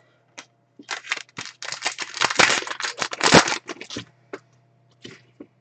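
Foil trading-card pack wrapper crinkling and tearing as it is ripped open. A few light clicks lead into about three seconds of dense rustling that peaks near the end, then a few more soft clicks.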